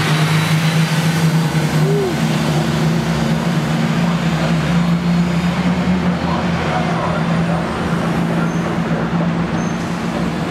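Detroit Diesel 6V92 two-stroke V6 diesel engine of a 1990 Flxible Metro city bus running steadily. Its pitch steps up right at the start, then holds level.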